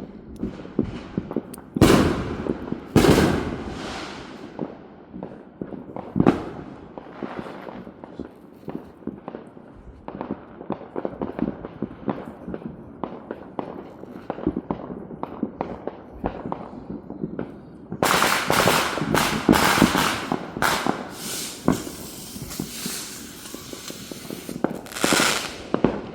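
Neighbourhood fireworks going off all around: scattered cracks, pops and booms, with two big blasts about two and three seconds in and a dense crackling barrage from about two-thirds of the way through.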